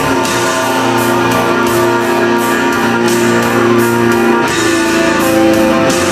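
Loud live metal music through a concert PA, electric guitars holding sustained chords over a steady beat.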